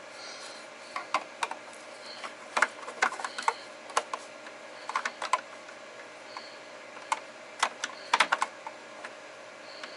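Irregular light clicks and taps, sometimes several in quick succession, from hands fitting small parts and wires into place.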